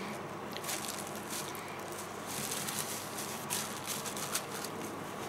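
Soft, irregular rustling and crackling of a paper napkin being handled and wiped across the mouth.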